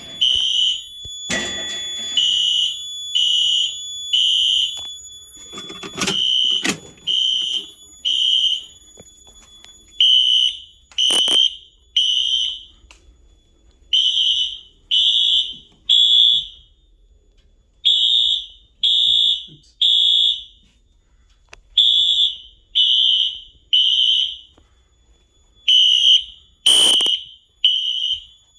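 Fire alarm sounding a high-pitched beep in the temporal-three evacuation pattern, three beeps then a pause, repeating about every four seconds: the system is in alarm after its pull station was activated. A few sharp knocks are heard over it.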